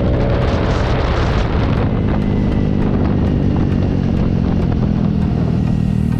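Yamaha Mio Soul i 125 scooter's single-cylinder four-stroke engine running through an aftermarket Apido V3 exhaust pipe. There is a rougher, louder stretch in the first second and a half, then it runs steadily.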